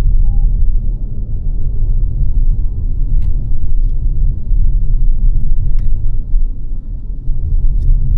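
Steady low road and engine rumble heard from inside a moving car, with a few faint clicks.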